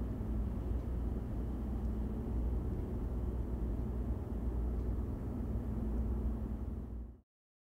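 Steady low rumble of distant city traffic, cutting off abruptly near the end.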